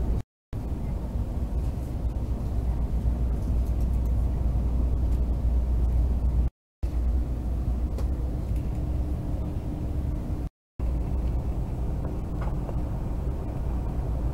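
Steady low rumble of a moving train heard from inside the passenger car. It is broken three times by a brief drop to silence.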